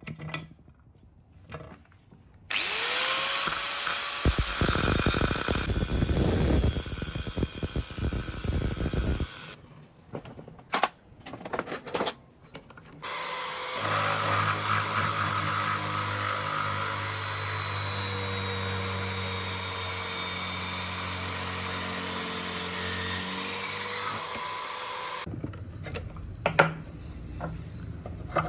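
Electric power tool spinning up with a rising whine and running for about seven seconds, then running again more steadily for about twelve seconds, with short knocks between the two runs.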